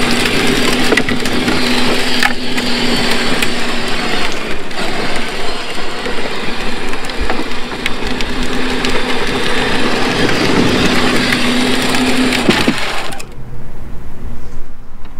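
12-volt Power Wheels ride-on car driving on concrete: its hard plastic tires roll with a gritty, crunching noise over the steady hum of its electric motor and gearbox. The noise drops away sharply about thirteen seconds in as the car moves off.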